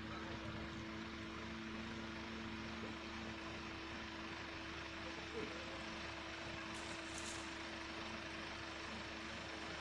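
Dump truck's engine running steadily while its hydraulic hoist tilts the loaded tipper body up to unload: a steady hum with two steady tones, the lower one dropping out about four seconds in.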